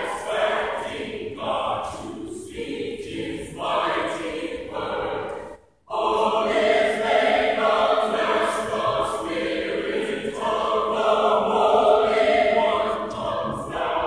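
Choir singing a hymn. The sound cuts out completely for a moment a little before six seconds in, then the singing comes back fuller and louder.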